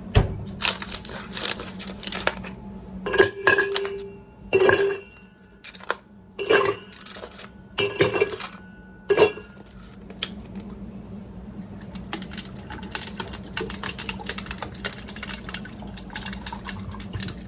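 Clinks and knocks of a drinking cup and its lid being handled: a string of sharp hard taps with short rings over the first ten seconds, then a steady run of small quick clicks.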